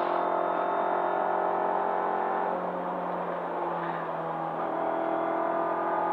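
Rally car engine running under load, heard from inside the cabin over road and tyre noise. Its note dips briefly midway and picks up again, as the driver eases off for a fast corner and accelerates back.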